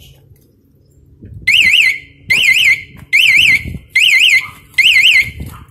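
Aftermarket motorcycle alarm siren giving five short, loud electronic chirps, each a warble that rises and falls twice. The chirps start about a second and a half in. It is the alarm's warning mode, set off by the bike being touched, not its full alarm.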